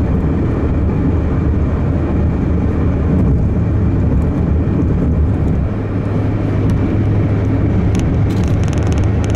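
Steady road and engine noise inside a car cabin cruising at highway speed: an even, low rumble of tyres and engine.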